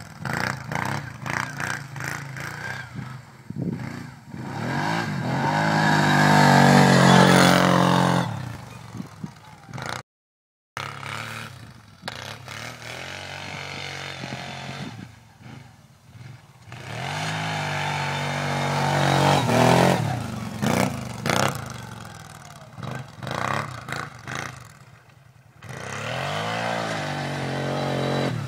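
Arctic Cat Thundercat 1000 ATV's V-twin engine revving up and down over and over as the quad is thrown around in snow, its note rising and falling. The sound cuts out briefly about ten seconds in.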